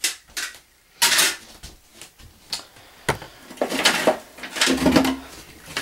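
Metal licence plates clinking and scraping against one another as a hand rummages through a wooden crate of them and pulls some out: a string of irregular clatters.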